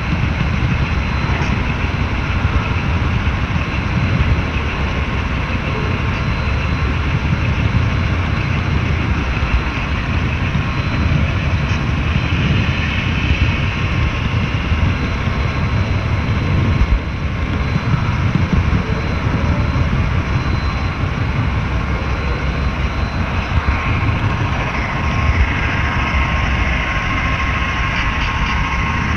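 HO-scale model train running along the track, heard from a camera riding on one of its flatcars: a steady rattling rumble of the wheels on the rails.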